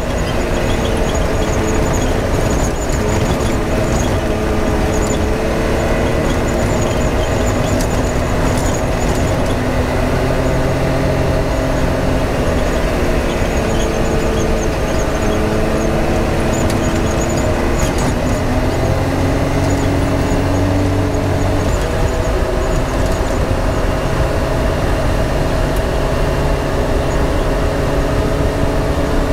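Vehicle engine running while driving, its pitch drifting up and down with engine speed over a steady low rumble, with occasional light clicks and knocks.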